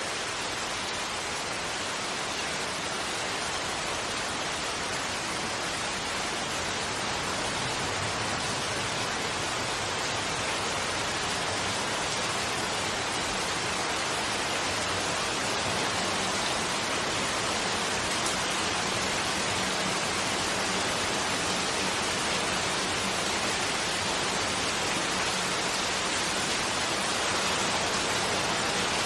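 Heavy rain falling steadily on a forest campsite, an even hiss that grows slightly louder.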